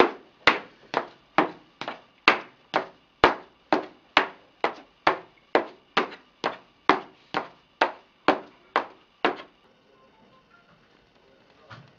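High-heeled shoes walking on laminate flooring: sharp heel clicks, about two a second, that stop near the end.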